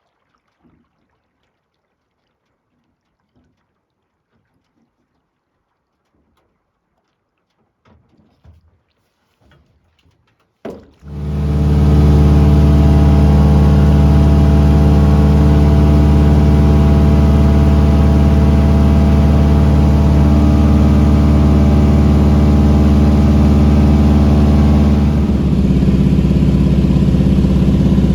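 A few faint knocks, then about eleven seconds in a light aircraft's piston engine comes in abruptly and runs loud and steady, easing a little near the end.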